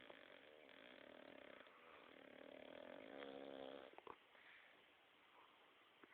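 A Staffordshire bull terrier snoring faintly in repeated breaths while it is awake. The loudest, rattling snore comes about three seconds in, followed by a short click.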